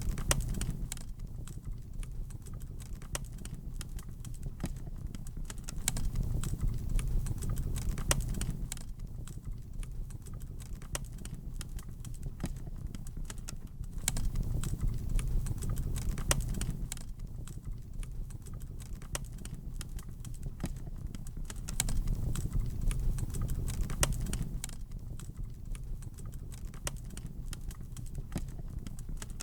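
Wood fire crackling in a fireplace: many sharp irregular pops and snaps over a low rumble of flames that swells and fades every several seconds.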